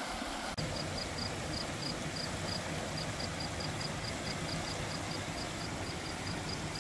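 Steady rush of a river running over rock ledges and small cascades. A faint high ticking, about three a second, runs through it.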